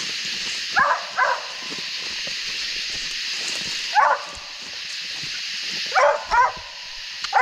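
Young redbone coonhound barking at a tree where she has treed a raccoon. About six short barks come mostly in pairs, a second or two apart.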